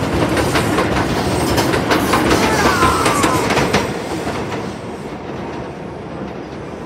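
New York City Subway R142 train pulling out of an elevated station, its wheels clacking over the rail joints, with a brief falling wheel squeal about three seconds in. The noise fades after about four seconds as the train moves away.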